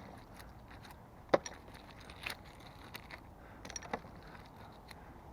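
A few sharp, light clicks and clinks of small metal finds, such as pennies, being handled and pulled off a magnet, spaced a second or so apart over a quiet steady background.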